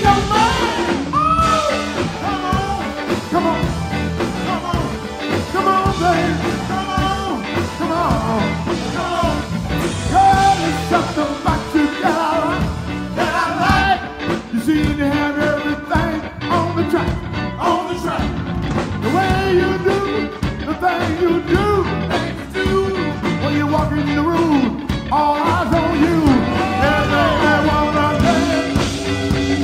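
Live blues band playing a steady groove on drums, electric guitars and keyboards, with a bending lead line over the top.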